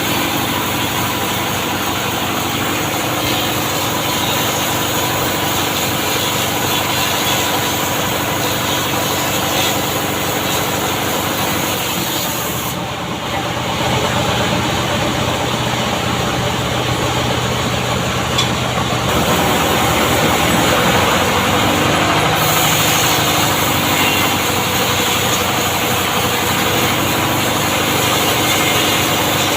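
An engine running steadily, with a thick noisy hiss over it. It gets a little louder about halfway through and again about two-thirds of the way in.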